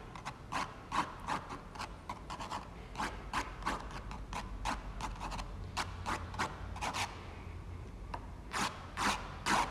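Pen nib scratching quick ink strokes across rough 300 lb Arches watercolour paper: a run of short scratchy strokes, a pause about seven seconds in, then a few louder strokes near the end.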